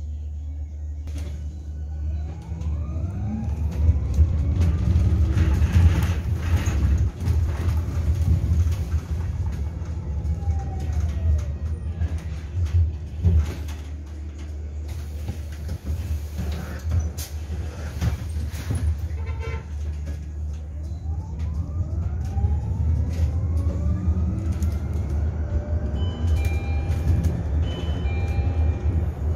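Inside a low-floor electric city bus on the move: the electric drive motor's whine climbs in pitch as the bus gathers speed about two seconds in, falls away as it slows, and climbs again over the last several seconds. Under it there is a steady low road rumble with scattered rattles and knocks.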